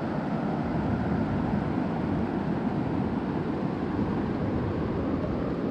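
Steady rush of a fast river running over rapids, an even noise with no change.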